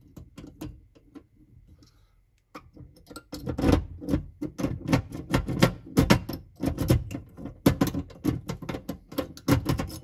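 Small cam lock in a steel key lock box clicking and rattling as it is worked by hand back to the locked position after being picked. There are a few faint clicks at first, then a dense run of loud, rapid clicking and rattling from about two and a half seconds in.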